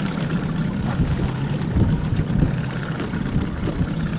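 A small boat's outboard motor running steadily at low trolling speed, a low even hum.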